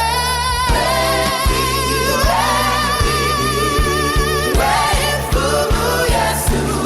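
Gospel worship song: voices singing long, wavering held notes over a steady bass line and a regular drum beat.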